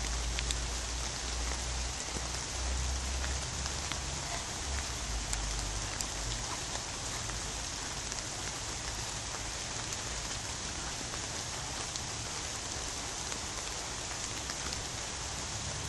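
Steady high hiss with scattered faint ticks, and a low rumble under it for the first six seconds or so.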